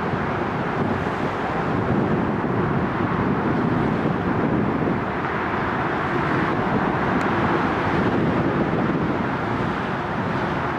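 Steady outdoor rumble of a Seoul Metro Line 2 train crossing a railway bridge at a distance, blended with city traffic noise and wind buffeting the microphone. No single train sound such as a horn, brakes or motor whine stands out from the even noise.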